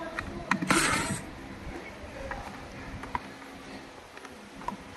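Hand-tool work on a kids' ride-on car's steering motor bracket: a screwdriver turning out a screw, with a few light clicks and a short scraping rattle about a second in. Scattered faint clicks and knocks follow as the plastic steering motor housing is handled.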